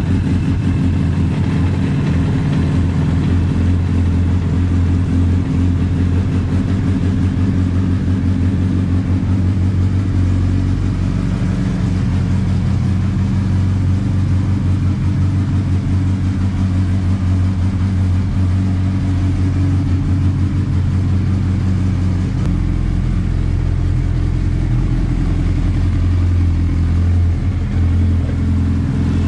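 Suzuki Hayabusa 1340 cc inline-four engine idling steadily after being started, running to check it after new spark plugs and a new air filter were fitted.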